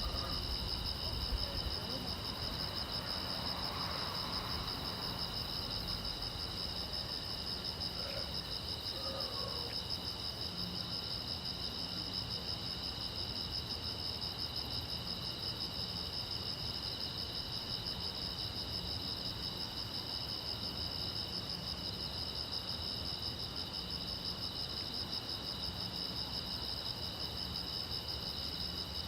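Crickets chirping in a steady, continuous chorus, several high pitches layered together without a break.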